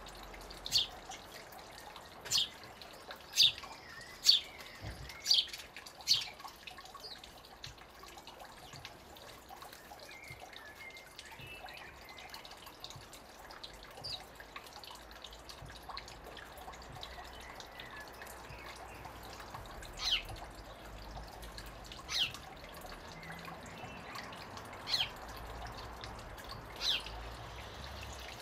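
A thin stream of water trickling from a rock lip into a shallow stone garden pool. Short, sharp, high chirps sound over it, about one a second for the first six seconds, then one every few seconds.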